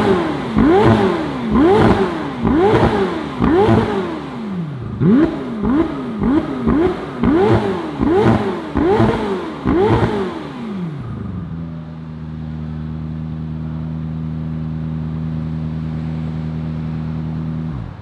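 McLaren 720S twin-turbo V8 breathing through a Fi Exhaust valved catback muffler, blipped in quick revs about one a second, each rising and falling in pitch with a sharp crack at the peak. About eleven seconds in the revving stops and it settles into a steady idle.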